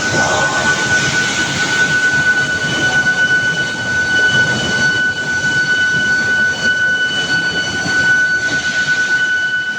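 Billet induction heating furnace running: a steady high-pitched whine from the induction coil, over a continuous rumbling machinery noise.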